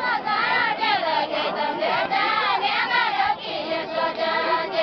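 Several high voices singing a Deuda folk song together, the lines wavering and overlapping.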